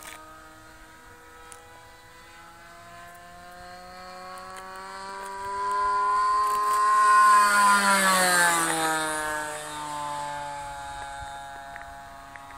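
Alcohol-fuelled engine of a radio-controlled model airplane making a fly-by. The engine note grows louder, peaks about seven to eight seconds in, then drops in pitch and fades as the plane passes and flies away.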